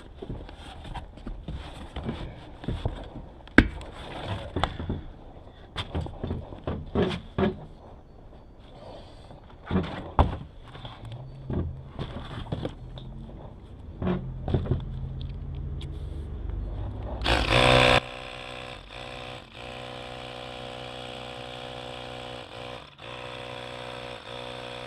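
Hands scraping and knocking a bicycle tire and inner tube onto the rim. About 18 seconds in comes a short loud hiss, and then a Ryobi handheld air compressor runs steadily, inflating the tube through its Schrader valve.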